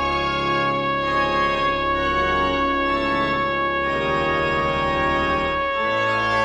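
Trumpet and church organ playing together: a high note held steady throughout over changing organ chords and a deep bass.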